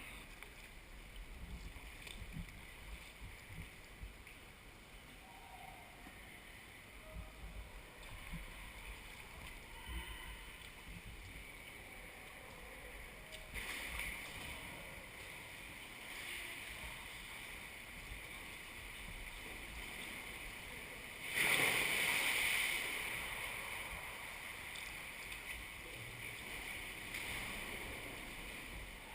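Water sounds around a paddled sea kayak: a faint, steady wash with a few small splashes, and a sudden louder surge of water noise about two-thirds of the way through that fades over a few seconds.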